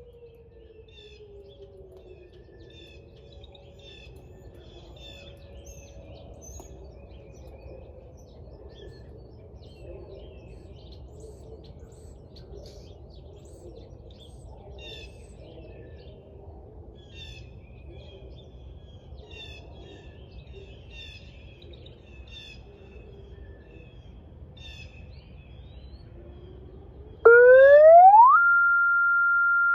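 Birds chirping over a low background rumble, with a faint tone gliding down and dying away at the start. About 27 seconds in, a police car's electronic siren sweeps up quickly and holds one steady high tone, much louder than everything before it: a steady alert imitating a tornado siren.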